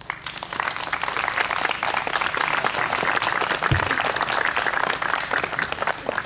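A crowd applauding: many people clapping, building up quickly, holding steady for several seconds, and dying away near the end.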